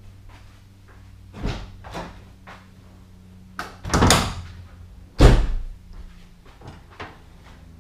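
A few separate clunks and knocks from a 1991 Toyota MR2's sheet-metal engine lid being unlatched and lifted open, the loudest a deep thud about five seconds in.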